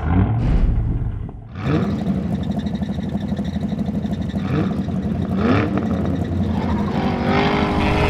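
Cartoon monster truck engine sound effect. It starts with a loud burst, dips briefly, then runs with a steady pulsing rumble, revving up briefly a few times.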